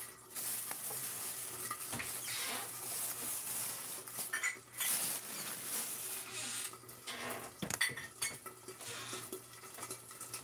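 Kitchen utensils and dishware clattering, clinking and scraping, in many short, irregular knocks while food is being prepared.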